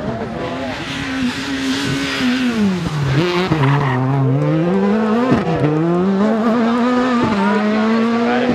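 Škoda Fabia S2000 rally car's four-cylinder engine at close range. It drops in pitch as the car brakes into a tarmac corner, with tyre noise as it slides through. It then climbs again with two brief dips at the upshifts as the car accelerates away.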